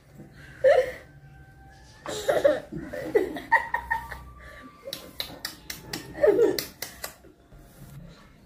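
Women and a toddler laughing and giggling in short bursts, with a few sharp clicks partway through.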